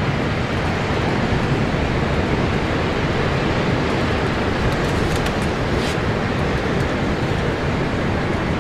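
Steady wind noise buffeting the microphone, with the wash of breaking surf underneath.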